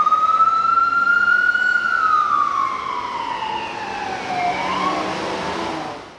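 Ambulance's electronic siren on wail: one slow rise in pitch, then a long slow fall, then a new rise beginning about five seconds in, fading out at the end.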